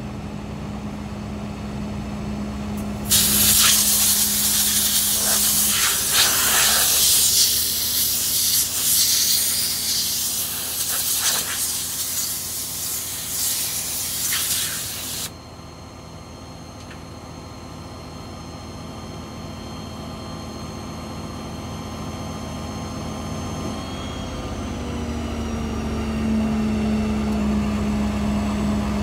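A loud hiss of compressed air blowing for about twelve seconds, starting and stopping abruptly, over an engine idling steadily.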